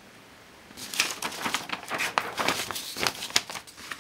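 Paper rustling and crinkling off to the side of the writing sheet, a dense run of quick crackles starting about a second in and stopping just before the end.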